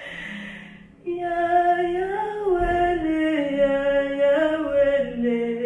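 A solo female voice singing unaccompanied, a slow line of long held notes that steps gradually downward in pitch. A short hiss opens it.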